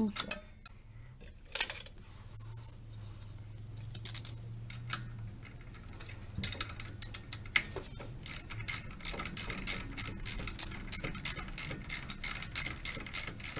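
Hand-tool work on an alternator being mounted on a small-block Chevy engine. There are a few scattered knocks and a low steady hum in the first seconds, then from about six seconds in a quick run of light clicks, about four a second.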